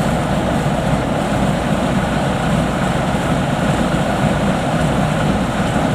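Combine harvester's diesel engine running steadily at high revs, loud and close.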